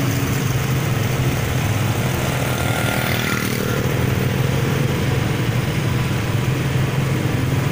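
Motorbike and vehicle engines running steadily in slow-moving traffic, a constant low hum under road noise.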